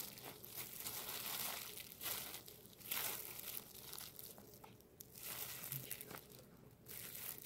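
Plastic snack wrapper crinkling in irregular rustles as it is handled.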